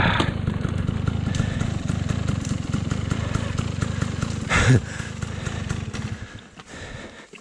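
Off-road motorcycle engine idling with a steady low pulse, blipped once briefly about four and a half seconds in; the engine sound drops away about six seconds in.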